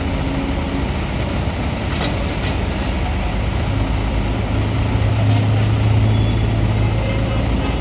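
A heavy construction machine's diesel engine runs steadily. Its low drone grows stronger from about four seconds in.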